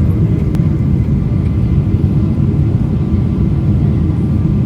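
Airliner cabin noise during the landing approach: a steady low rumble of engines and airflow, with a faint steady whine. A brief click about half a second in.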